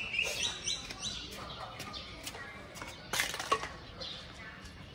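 Small birds chirping in quick, high runs of short notes. A brief burst of scratching and clicking comes about three seconds in.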